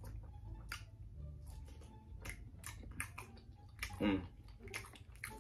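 A person chewing breaded chicken nuggets close to the microphone: irregular wet mouth clicks and smacks, with a short closed-mouth "mm" about four seconds in.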